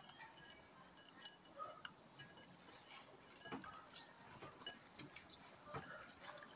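Hands rubbing coarse salt into raw barracuda pieces in a ceramic bowl: faint wet handling sounds with scattered light clicks of fish and fingers against the bowl.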